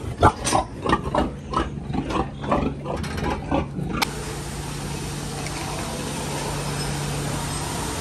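Pigs grunting and squealing in quick short calls, two to three a second. About halfway they give way abruptly to the steady hiss of a water hose spraying a fine mist, over a steady low hum.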